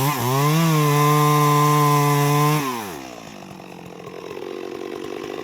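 Two-stroke chainsaw running at high revs; its pitch dips and recovers briefly right at the start, then holds steady. About two and a half seconds in the throttle is let off, the engine note falls away and it runs on quieter and lower.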